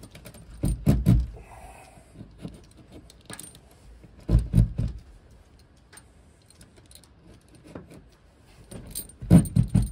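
Metallic clinks and knocks from copper ground wire and a metal ground-rod clamp being handled and worked by hand. They come in three short clusters: about a second in, around four and a half seconds, and near the end, with faint ticks between.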